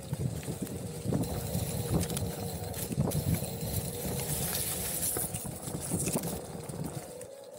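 Onewheel's hub motor whining steadily as it is ridden over rough trail, with irregular knocks and rattles from the bumps, quieter towards the end.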